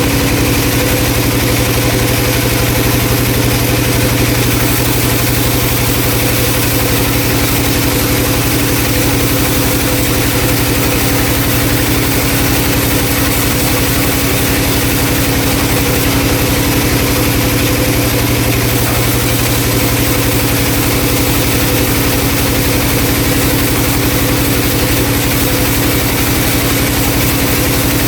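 Vertical band saw running with a loud, steady hum that holds the same pitch throughout.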